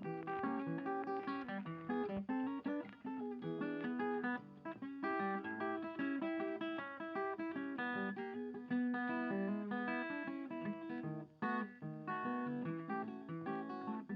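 Background music: acoustic guitar played with quick picked and strummed notes.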